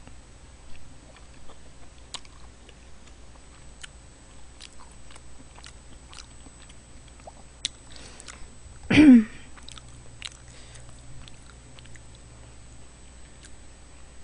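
Close-miked eating of army stew: chewing, with many small wet mouth and spoon clicks. About nine seconds in there is one short, loud voiced sound from the eater, falling in pitch.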